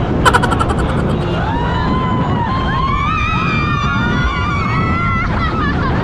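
Several passengers screaming together on a fast boat ride: long, high, overlapping screams that rise and fall, with a short burst of rapid cries near the start. Steady wind and boat noise runs underneath.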